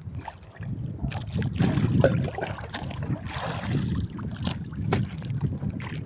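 Wind buffeting the microphone on a small boat at sea, with water splashing and a few sharp knocks against the hull or gear.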